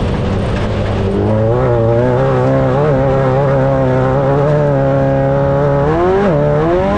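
Off-road race vehicle's engine under power. It climbs in revs about a second in and holds high with slight wavering, then near the end rises, drops sharply and climbs again as it shifts up a gear.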